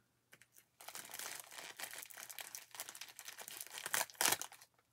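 Packaging being unwrapped by hand, crinkling and rustling in quick irregular crackles from about a second in, loudest near the end.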